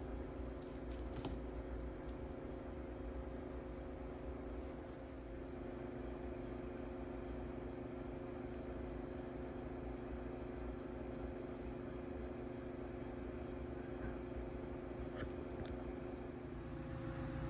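Steady mechanical hum of a running machine, holding an even pitch, with a couple of light clicks near the end.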